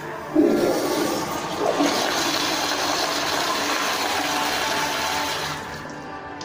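American Standard Madera toilet flushing through its chrome flushometer valve: a sudden rush of water starts about half a second in, runs loud and steady for about five seconds, then tapers off near the end.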